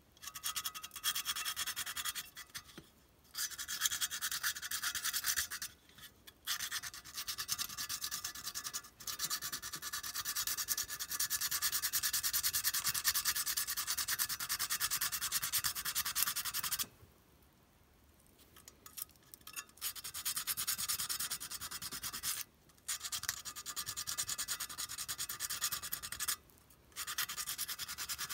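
Sandpaper rubbed by hand over the painted metal body of an O gauge clockwork toy locomotive, stripping off the thick paint down to the rusty metal: dry scratching in spells of a few seconds, broken by short pauses, with a longer pause about two-thirds of the way through.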